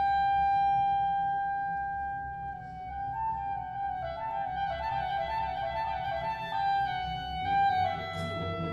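Slow instrumental background music: one long held note, then a gently moving melody over sustained chords.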